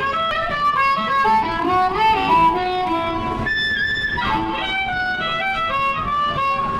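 Live music: a lead instrument plays quick runs of notes, holding one high note for about half a second a little past the middle.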